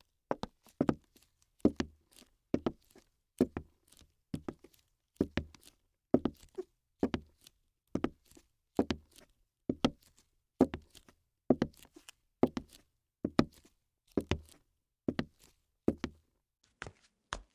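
Steady series of short, hard knocks, about one a second, each often a quick double strike with a dull low thud under it. Between the knocks it is nearly silent.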